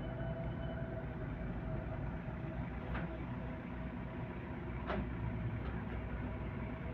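Vehicle engine running steadily with a low rumble, with two short clicks about three and five seconds in.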